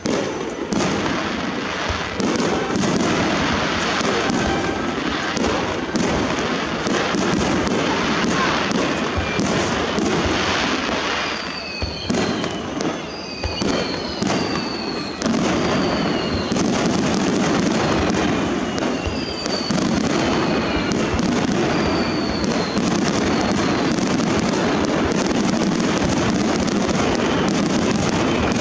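Starmine fireworks barrage: a rapid, continuous volley of aerial shell bursts with dense crackling, and several short falling whistles through the middle.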